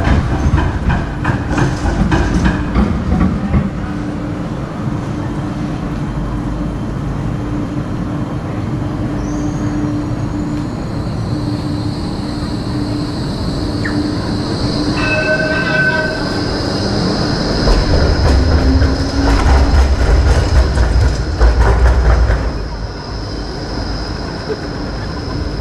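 Electric street tram running on its rails: a steady motor hum and rumble, with a long high wheel squeal that sets in about halfway through. The rumble swells for a few seconds near the end.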